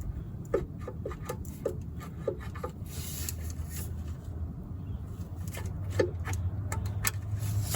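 Light metallic clicks and taps, several with a short ping, from a tool probing at a bulldozer's oil pan drain opening for an object lodged inside. The taps come in a quick run over the first few seconds and once more near the end, over a steady low hum.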